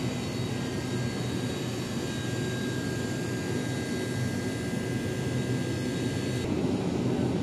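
Steady hum and hiss of supermarket refrigerated display cases, with a few thin high tones that stop about six and a half seconds in.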